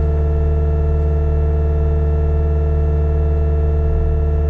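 Heavy-equipment diesel engine running at a constant speed: a steady, deep, even hum that does not change.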